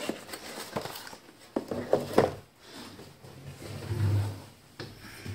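Knocks and clinks of tooling being handled in a steel Kennedy toolbox drawer, then a low rumble about four seconds in as the drawer slides on its runners, with another knock just after.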